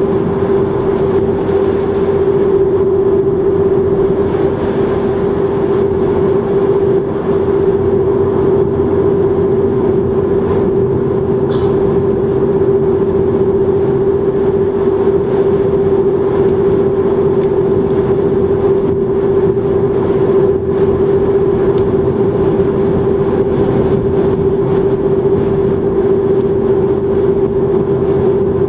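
Steady noise of a car driving at highway speed, heard from inside the cabin: a constant droning hum over tyre and road noise.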